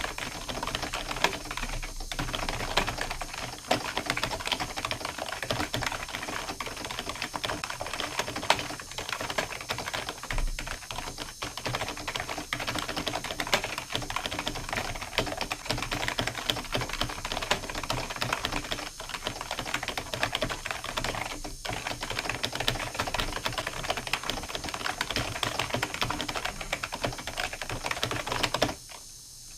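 Fast, continuous typing on a computer keyboard, a dense patter of key clicks that stops abruptly near the end.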